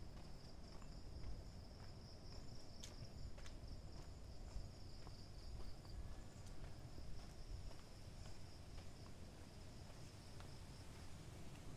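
Night insects, crickets, trilling in one steady high-pitched band that breaks off briefly about six seconds in, over a faint low rumble.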